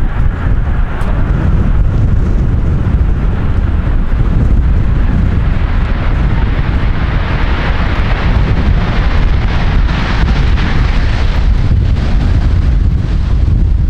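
Strong wind buffeting the microphone in a heavy, constant rumble. Over it the roar of a jet airliner swells from about five seconds in and fades again near the end as the plane passes.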